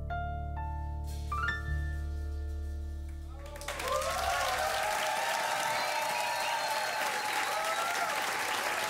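Last chords of a song on a keyboard ringing out over a held bass note. About three and a half seconds in, the audience breaks into applause, with some cheering voices over the clapping.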